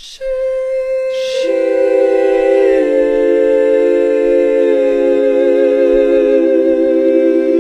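Slow background music of long held notes: a single note, joined by lower notes about a second in, with the chord shifting about three seconds in and again near the end.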